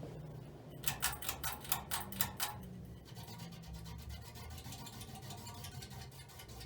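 Sears/Lasko Turn of the Century ceiling fan running with a steady low hum and fine, rapid ticking; its bearings are poor. About a second in comes a run of eight or so louder sharp clicks over about a second and a half.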